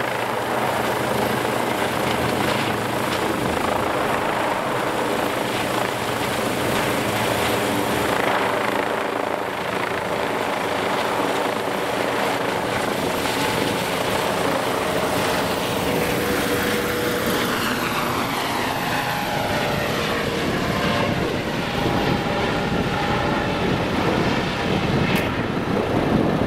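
Eurocopter EC135 helicopter taking off and climbing overhead: the main rotor beating and the twin turbine engines running loud and steady at take-off power. In the second half the tones shift in pitch as the helicopter moves away overhead.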